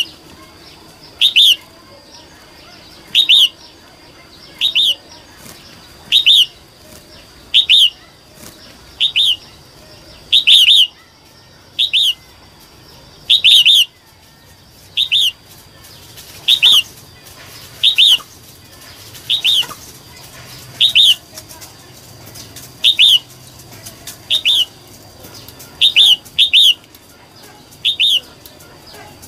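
Female red-whiskered bulbul calling: short, sharp notes repeated over and over, about one every second and a half, some given as quick pairs. A female's call used to rouse male bulbuls.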